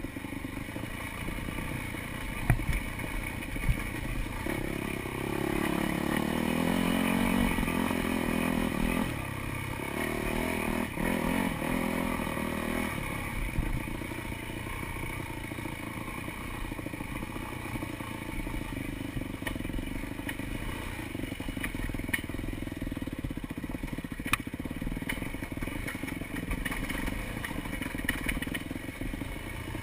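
Dirt bike engine being ridden on a trail, revving up and easing off with the throttle. It is loudest in two bursts of throttle between about five and thirteen seconds in, with a few sharp knocks and clatter along the way.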